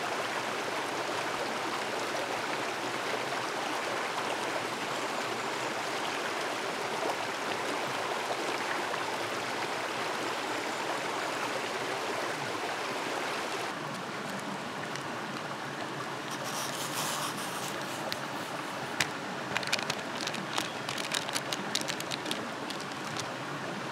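Mountain stream running over rocks, a steady rush of water. In the last few seconds, a run of small sharp clicks and crinkles as powder is shaken from a packet into a steel canteen cup.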